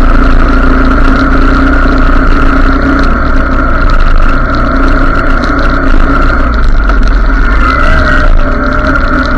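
Motorcycle engine running steadily while riding, with a heavy low rumble, and a short rise in pitch near the end.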